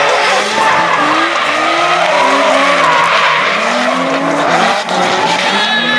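Two drift cars, a BMW 3 Series sedan and a Nissan S-chassis coupe, sliding sideways in tandem. Both engines rev up and down on the throttle while the tyres skid and squeal throughout.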